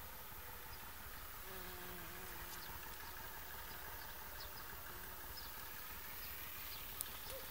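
Faint buzzing of honeybees foraging on sunflowers, with a wavering hum from a bee flying close for a second or two, over a steady outdoor hiss. A sharp click near the end.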